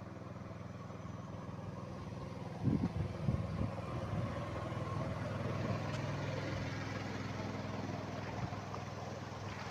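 A small engine running steadily at a low, even pitch, with a few louder knocks about three seconds in.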